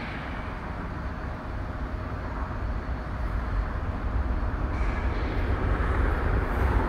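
Jet airliner on final approach to land, its engine noise a low rumble that grows steadily louder as it closes in.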